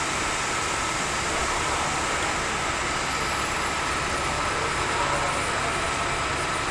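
Milling machine running while drilling a hole under depth-controlled feed: a steady machine noise with a faint, very high whine that drops in pitch about two seconds in and then holds steady.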